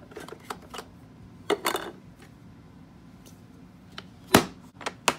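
Scattered clicks and knocks of hard objects being handled at a storage box, with one sharp knock about four seconds in.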